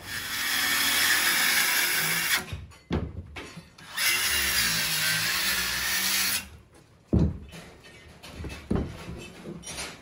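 Handheld circular saw cutting a wooden stud to length in two passes of about two seconds each, the blade running in wood, followed by a few sharp wooden knocks.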